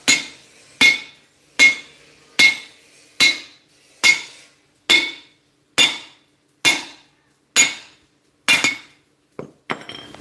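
Sledgehammer blows on a steel driving disc over the bore of a cast spoked (artillery-type) truck wheel hub, driving the bearing cup and spacer ring home: about eleven ringing metal strikes, roughly one a second. A few light clinks follow near the end as the hammer is set down.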